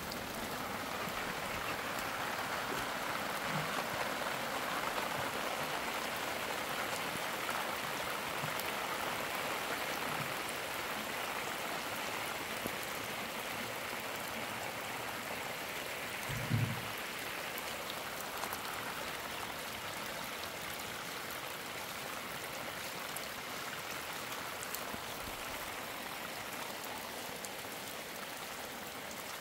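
Steady rain with muddy runoff water running down a dirt channel. One dull thump about halfway through.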